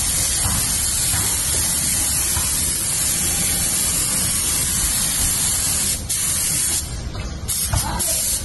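Compressed-air gravity-feed spray gun spraying automotive top coat: a steady, loud hiss of atomizing air and paint. The hiss breaks off briefly a few times near the end as the trigger is let go and squeezed again.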